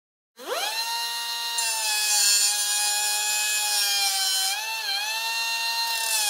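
Electric power drill motor spinning up about half a second in, its whine rising fast to full speed and then running steadily with a high whine. The pitch dips and wobbles briefly about four and a half seconds in, as if the trigger eased or the bit took a load.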